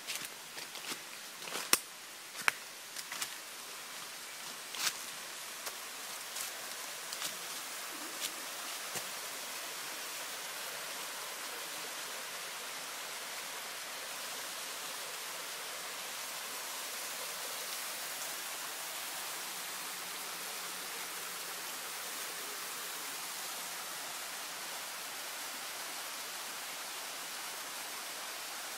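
Small waterfall rushing: a steady hiss of falling water that grows slightly louder. During the first several seconds, sharp clicks and crunches of footsteps and brushing through leaves sound over it.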